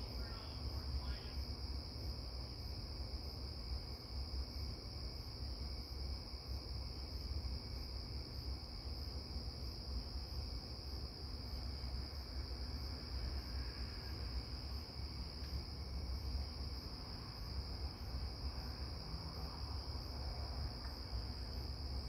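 Crickets chirping in a continuous night chorus: a steady high-pitched trill, with a low rumble underneath.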